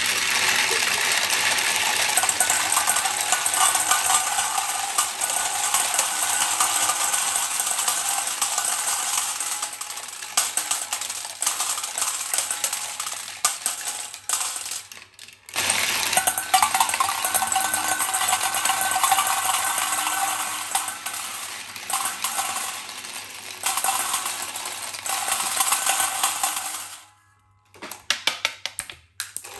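Dozens of glass marbles rolling and clattering down a plastic Galt Super Marble Run track and dropping into a stainless steel bowl, a dense, continuous rattle of clicks. It breaks off briefly about halfway through, then stops near the end, leaving a few last clicks.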